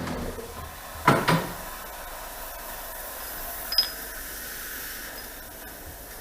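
A steady motor hum cuts off just after the start. About a second in comes a loud, short double bang, and near four seconds a single sharp metallic click, during brake-caliper work with compressed air.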